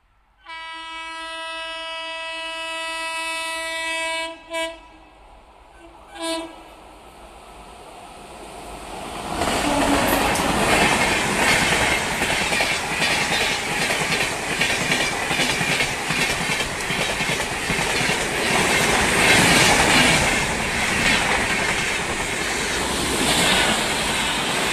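Locomotive horn of the 22827 Puri–Surat Express sounding one long blast and then two short toots. A few seconds later the express runs past at speed, its coaches rattling over the rails with a fast clickety-clack.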